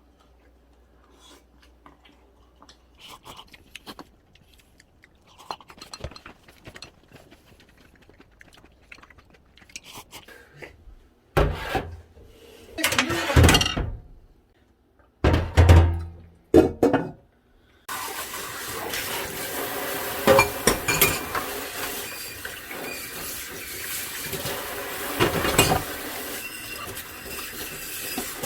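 Kitchen sink work: light clinks of dishes and utensils, then several loud gushes of water, and from about eighteen seconds in a steady stream of tap water running into the sink.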